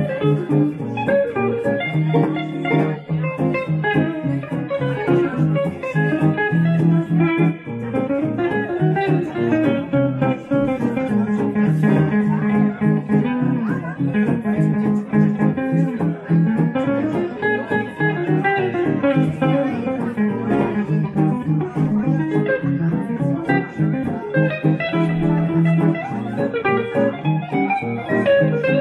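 Gypsy jazz (jazz manouche) played by a guitar duo: a lead guitar plays melodic lines over a steady chorded rhythm from the second guitar.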